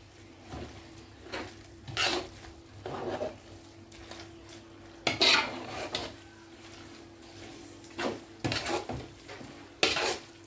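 Metal spoon scraping and clanking against the side and bottom of a large metal pot as a thick leafy vegetable sauce is stirred, in short irregular strokes.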